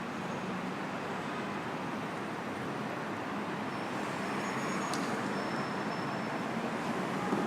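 City street traffic: a steady hum of passing cars and engines, with a brief high squeak and click about five seconds in and a vehicle passing louder near the end.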